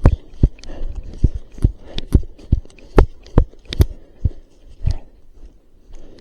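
Running footsteps, heavy thuds about two and a half a second, slowing and fading out about five seconds in.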